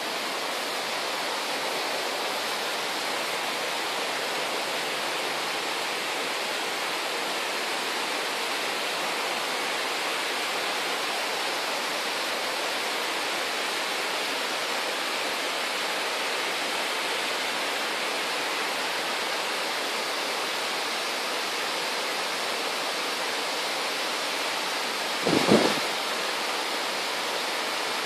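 Steady rush of water pouring over a small waterfall (weir) on a canal, an even hiss with no break. A brief thump about 25 seconds in.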